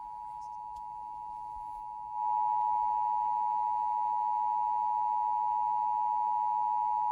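Emergency Alert System two-tone attention signal from a broadcast radio: a steady dual tone at 853 and 960 Hz, marking the start of a monthly EAS test. It gets louder about two seconds in.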